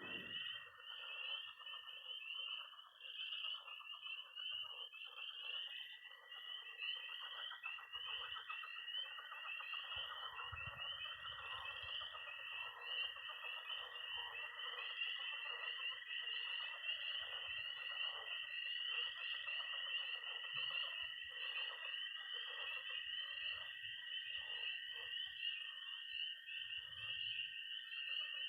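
Early-spring frog and toad chorus: spring peepers calling in a dense, continuous run of high peeps, a toad's long, steady high-pitched trill held throughout, and pond frogs croaking underneath.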